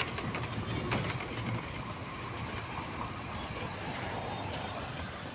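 Steady road traffic noise: a general hum of vehicles on a city road.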